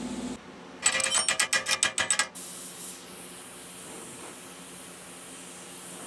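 A fast run of sharp metallic clicks, about nine a second, lasting about a second and a half. Then the steady hiss of a gas torch flame heating a steel bar.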